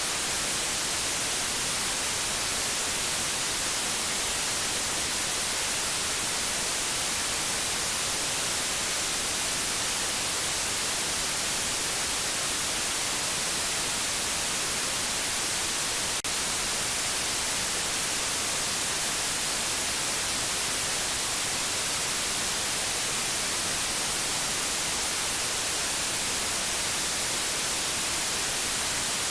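Steady white noise: an even, bright hiss with no tone or rhythm in it, with one faint click about halfway through.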